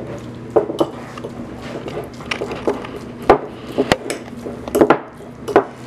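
Kitchen utensils clinking and knocking against dishes and pans: about eight sharp, separate clinks, the loudest about halfway through, over a low steady hum.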